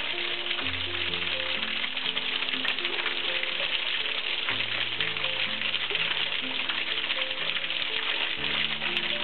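Thin streams of a small waterfall spattering onto mossy rocks, a steady hiss, over background music of slow held notes.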